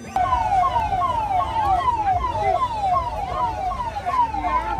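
Electronic siren sounding in quick falling sweeps, two to three a second, over a low rumble of street noise.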